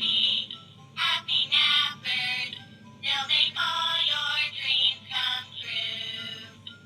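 A high-pitched, electronic-sounding singing voice with music, sung in short phrases with brief gaps.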